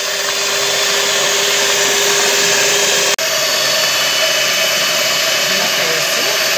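Electric hand mixer running steadily, its beaters whipping cream in a bowl. There is a brief break about three seconds in, after which it runs at a higher pitch.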